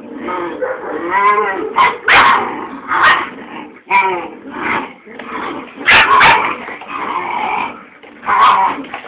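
45-day-old puppies play-fighting, vocalising continually with wavering calls. Loud, sharp barks break in about five times.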